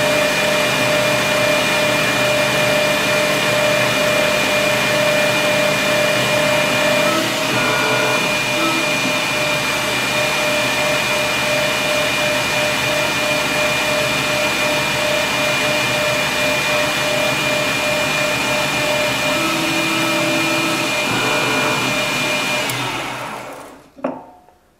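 Metal lathe running steadily with a constant motor hum while a boring tool cuts the inside of a tube. The machine shuts off about 23 seconds in and the sound dies away within a second or so.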